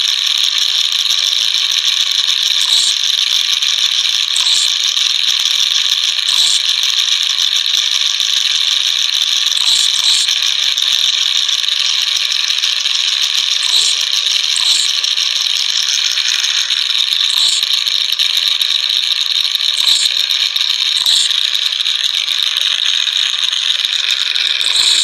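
Continuous loud mechanical rattling, like a ratchet being run, with sharp clicks every one to three seconds.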